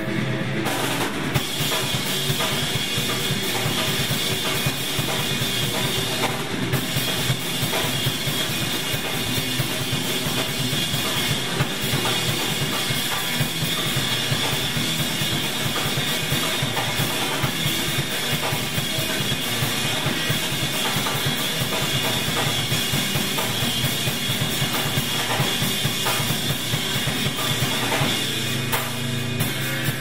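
Background music with a steady drum-kit beat.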